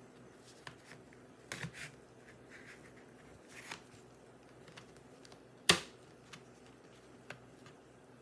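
Retaining clips of a Dell XPS 13 9350's bottom panel snapping loose as a thin plastic pry tool works along the edge: a few light clicks, then one sharp snap about five and a half seconds in.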